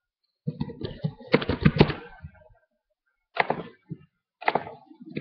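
Clicks and knocks of objects being handled close to the microphone: a quick run for about two seconds, then three single knocks about a second apart.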